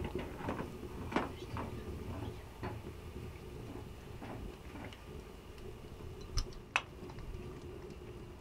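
Scattered light clicks and knocks of kitchen utensils and cookware being handled, with two sharper knocks about six and a half seconds in, over a faint steady low hum.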